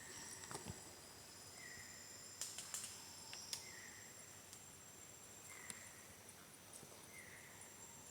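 Faint Amazon rainforest ambience: a steady high-pitched insect drone under a short call repeated about every two seconds, with a few sharp clicks or snaps about a third of the way in.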